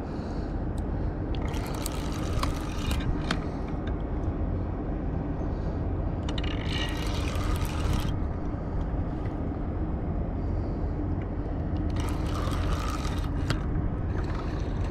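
A hooked blue catfish thrashing and splashing near the surface in three short bursts as it is reeled toward the bank on a spinning reel, over a steady low engine rumble from passing river ships.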